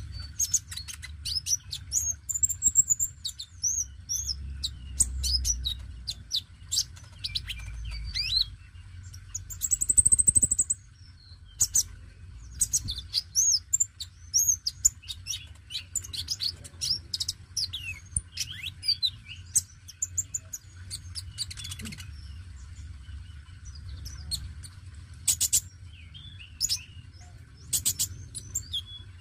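Male sunbird singing: a long run of rapid, high, thin chirps and twittering trills in quick changing phrases, with a louder ringing phrase about ten seconds in and a few sharp clicks later on. A low rumble runs underneath.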